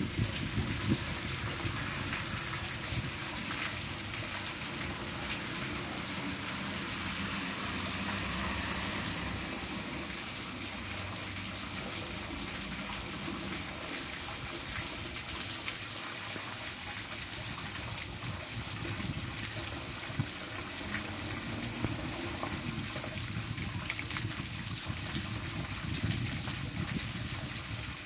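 Steady rain falling: an even hiss with fine, dense drop patter.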